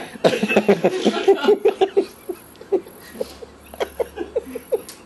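A man laughing in quick bursts, hardest in the first two seconds, then trailing off into separate chuckles.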